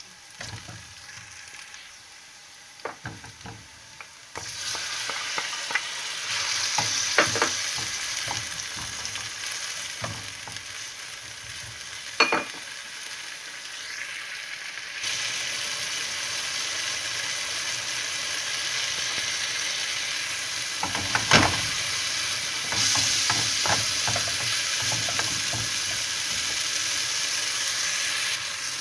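Food frying in a pan with a steady sizzle that starts about four seconds in and grows stronger in steps. A utensil stirring it knocks against the pan now and then.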